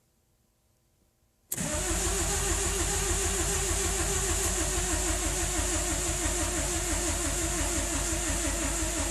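A 1997 BMW 318i's four-cylinder engine being cranked by the starter motor, which cuts in suddenly about a second and a half in and turns the engine over steadily with an even, rapid pulse. The engine does not catch: the car won't start after sitting for six months, despite a new battery, new spark plugs and a checked spark.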